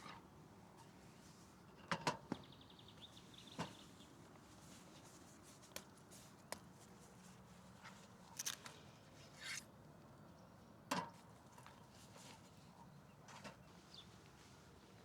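Camp cooking gear being handled over quiet outdoor background: scattered sharp clicks and knocks, about nine in all, the loudest about two seconds in and again near eleven seconds, with a brief fast ticking run around three seconds in.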